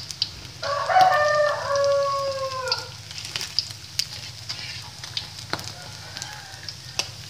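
A rooster crows once, one long call of about two seconds that drops in pitch at its end, over the crackle of food deep-frying in hot oil, with scattered sharp clicks.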